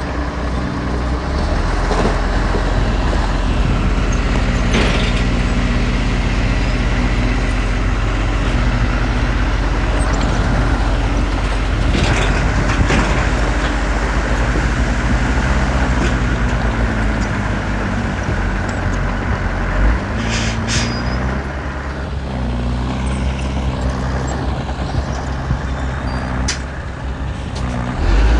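Heavy diesel engine of earthmoving equipment running steadily, its pitch shifting about twenty seconds in, with a few short sharp clanks and hisses over it.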